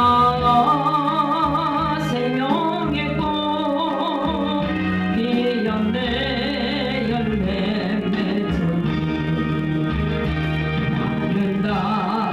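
A song: a voice singing with wide vibrato over instrumental accompaniment.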